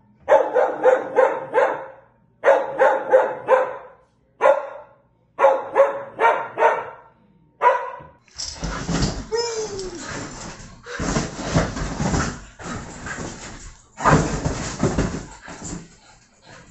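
A small dog barking at a window washer outside the glass, in rapid runs of high yaps about four a second, with short pauses between the runs. About halfway the barking stops and a run of louder, noisy rustling and knocking sounds follows.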